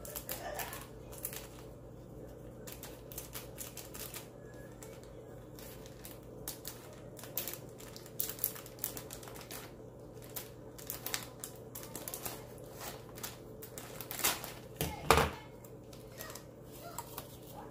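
Irregular light clicks and taps of things being handled in a kitchen, over a faint steady hum, with a few louder knocks about fourteen to fifteen seconds in.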